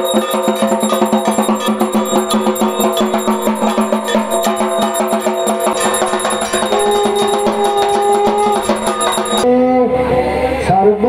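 Dhak drums beaten in a fast, steady rhythm with ringing metal percussion, as played at Durga Puja worship. The drumming stops abruptly about nine and a half seconds in and a voice follows.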